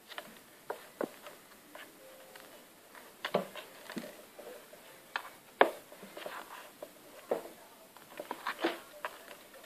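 Five-week-old kittens scampering and play-fighting on a wooden floor: irregular light taps and scrabbles of paws and claws, with a sharper knock about five and a half seconds in.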